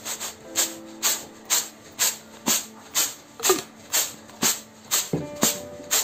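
Whole black urad dal rattling and swishing in a bamboo winnowing basket (chhaj) jerked in an even rhythm, about two strokes a second. It is the sound of winnowing, which throws the fine broken bits and husk out of the dried dal and leaves the clean grain.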